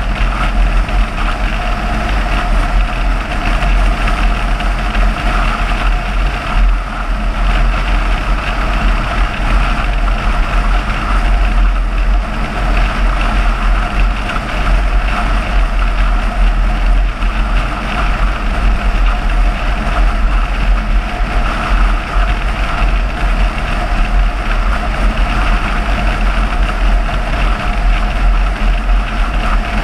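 Car driving steadily at road speed: continuous engine and tyre noise over a deep, even rumble, with no change in pace.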